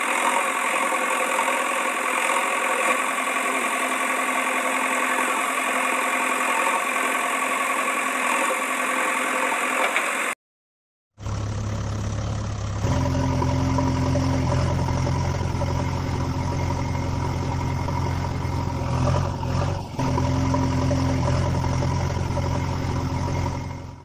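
Heavy-vehicle engine running steadily: a higher, buzzy machine drone for about ten seconds, a short cut to silence, then a deeper engine drone that steps up in level about a second and a half after it returns.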